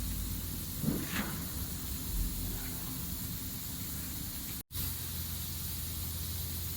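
Plastic granulator running with a steady low hum and hiss, with no crushing impacts; a brief sweeping sound comes about a second in, and the sound cuts out for an instant about two-thirds of the way through.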